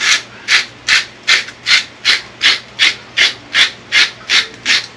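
Salt being shaken out of its container into a pot of water, about thirteen short scratchy strokes in an even rhythm of about two and a half a second.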